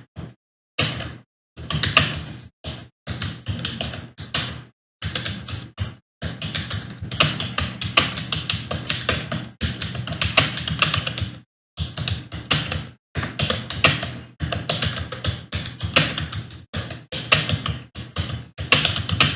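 Computer keyboard being typed on fast during a timed typing test, keys clicking in quick runs broken by short pauses.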